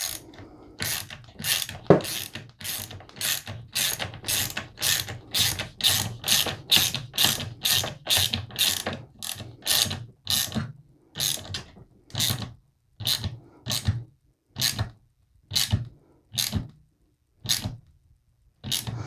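Ratcheting screwdriver driving the screw of a QD sling cup into a polymer rifle stock: a long run of short ratchet clicks, about two or three a second, that space out to about one a second over the last several seconds as the screw tightens.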